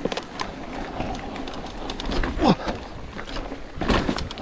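Mountain bike riding over slickrock sandstone: tyres rolling and the bike rattling and knocking over bumps and ledges, with wind rushing over the camera's microphone. A short tone drops steeply in pitch about halfway through.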